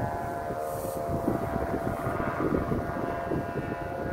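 A chorus of kite flutes humming overhead, several steady tones held together without a break, against loud wind buffeting the microphone.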